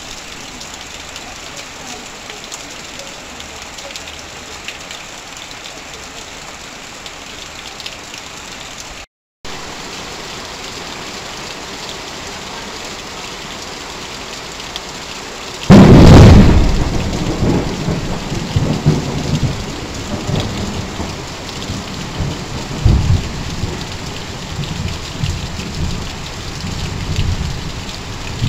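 Heavy rain drumming on corrugated tin roofs and sheets, with water pouring off a roof edge, steady apart from a brief cut to silence about nine seconds in. About sixteen seconds in, a sudden loud thunderclap breaks and rolls on as an uneven low rumble under the rain.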